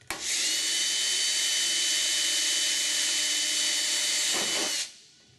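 Cordless drill running at a constant full speed with a steady high whine, drilling pilot holes through the aluminium skin into a rib. It starts abruptly and cuts off near the end.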